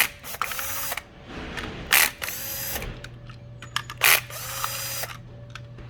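A screwdriver backing out three small screws from the GDX-Cart's plastic panel: three rounds about two seconds apart, each a sharp click followed by about a second of rasping mechanical noise.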